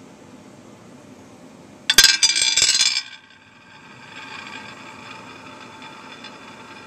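Handmade lampwork glass spinning top launched onto a plate: about two seconds in, a rapid clatter of glassy clinks for about a second as it lands and skitters, then a steady, quieter whir with a faint ring as it spins on its point.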